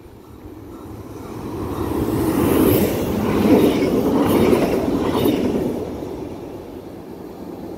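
CFL 2321, a Stadler KISS double-deck electric multiple unit, passing close by at speed without stopping. Its wheels and running gear rumble, building to a peak with a few sharp clacks near the middle, then fading as it goes away.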